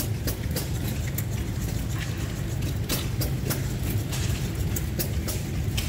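Steady low drone of running engines, with irregular sharp clicks and ticks throughout.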